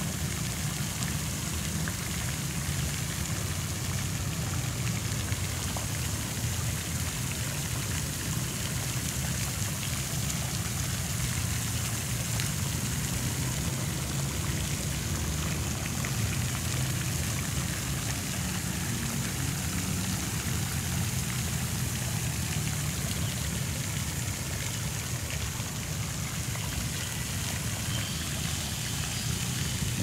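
Many small fountain jets spraying into a shallow pond, the water splashing steadily onto its surface.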